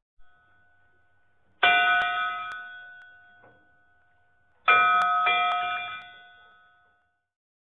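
Two ringing bell-like chime strikes about three seconds apart. Each is a chord of several tones that fades away over about two seconds.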